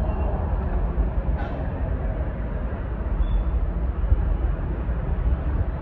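Steady street traffic noise with a strong low rumble, cutting off abruptly near the end.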